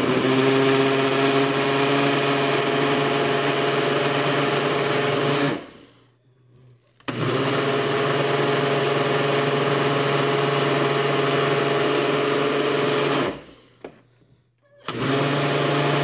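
Ninja Professional 900-watt personal blender running, pulsed in three runs: it stops about five and a half seconds in, runs again for about six seconds, stops, and starts again near the end. The runs are a steady motor hum and whine as it blends cucumber, celery, leafy greens and fruit into a green smoothie.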